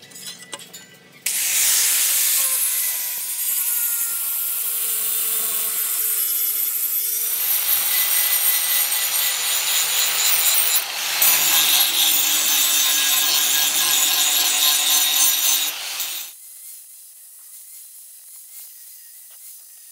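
Angle grinder with an abrasive disc grinding rust off the steel of a meat cleaver, throwing sparks. It starts about a second in and runs steadily with a faint motor whine, changes in tone about seven seconds in, and cuts off about sixteen seconds in, leaving only a faint hiss.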